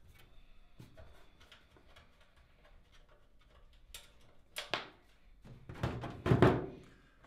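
Computer case being handled and stood upright: faint clicks and rustles, then a couple of knocks and a heavier thump with a shuffle of movement about six seconds in as the case is set down.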